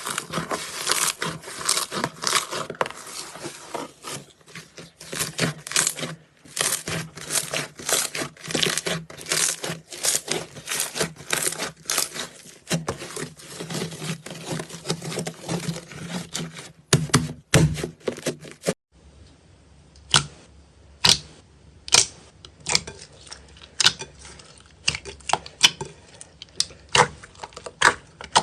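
Slime being squeezed and poked by hand, making a dense run of sticky clicks and crackles. About two-thirds through, the sound changes to a different take, where the clicks are sharper and more spaced out.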